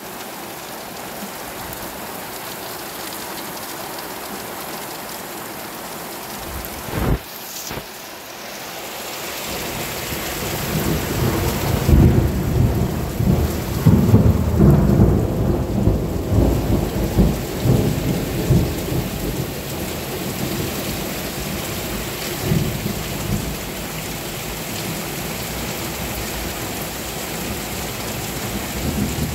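Heavy rain falling steadily, with a short sharp crack about a quarter of the way in. Then a long rumble of thunder builds, peaks near the middle and slowly fades back into the hiss of the rain.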